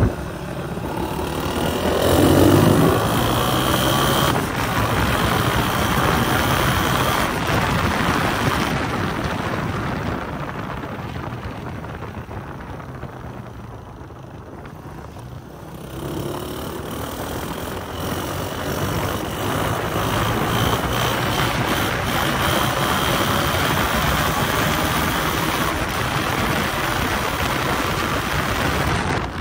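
Honda CG 125's single-cylinder four-stroke engine running through an aftermarket Goshi silencer while being ridden, now warmed up. It revs up a couple of seconds in, eases off and quietens in the middle, then pulls hard again from about sixteen seconds in.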